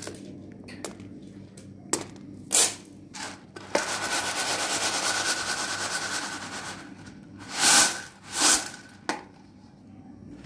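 Dried beans rattling on a large metal tray as it is shaken, a dense rattle lasting about three seconds. Before it, a few single clicks of beans dropped onto the metal; after it, two louder swishes of beans sliding across the tray and one last click.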